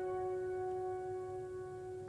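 Slow background piano music: a held chord rings on and slowly fades, with no new note struck.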